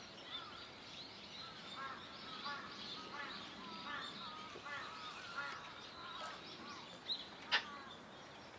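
A flock of black-headed gulls calling: many short calls overlapping throughout, with a sharp click about seven and a half seconds in.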